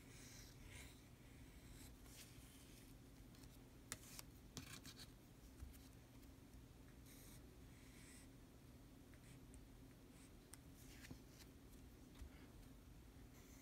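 Faint scratching of a fountain pen nib on paper in short strokes as large Japanese characters are written, with a few light ticks as the pen touches down.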